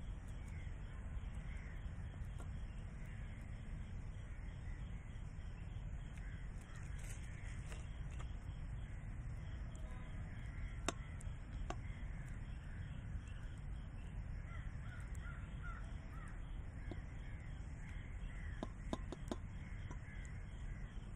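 Birds calling repeatedly over a steady low outdoor rumble, with a few light clicks of a plastic spoon against a stainless steel plate as mayonnaise is spread.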